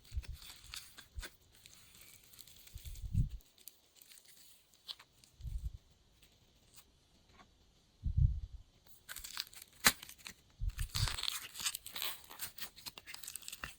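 Glossy slime being kneaded and stretched by hand: crackling and clicking, with five soft low thumps as it is pressed down. The crackling gets denser from about nine seconds in.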